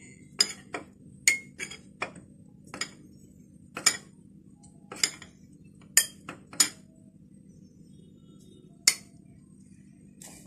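A metal spoon clinking against a small glass cup and a glass bowl as flour is scooped and tipped into a blender jug: about a dozen sharp clinks at irregular intervals, most in the first seven seconds.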